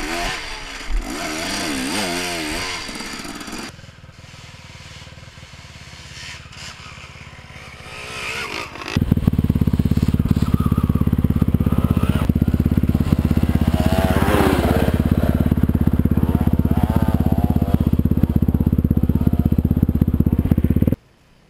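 Dirt bike engines. First a Husaberg TE 300 two-stroke revs up and down as it climbs a forest hill, fading after about four seconds. From about nine seconds in there is a loud steady low rumble of a bike engine running close by, with another bike revving briefly about halfway through; the rumble cuts off suddenly near the end.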